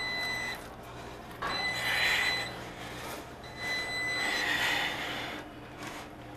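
An electronic alarm beeping three times, each beep about a second long and about two seconds apart, over a steady low hum. Between the beeps comes scuffing from the rubber refrigerator door gasket being pressed by hand into its channel.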